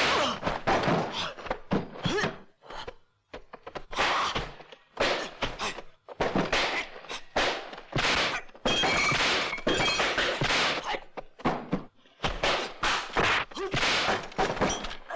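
Kung fu film fight sound effects: a rapid, irregular series of dubbed punch and kick impacts, sharp thwacks landing several times a second with brief pauses between exchanges.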